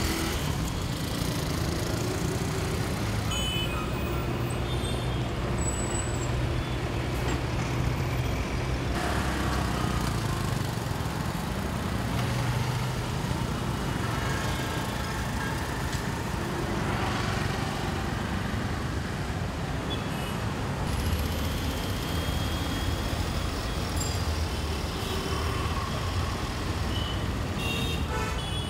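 Heavy road traffic: truck, bus and car engines running in slow, congested traffic, with a few short high tones such as horn toots. The sound shifts abruptly a few times as the scene cuts.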